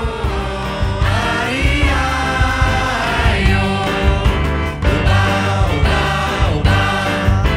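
Mixed-voice choir singing a samba in Brazilian Portuguese, backed by a band with saxophones, trumpet and a steady bass pulse.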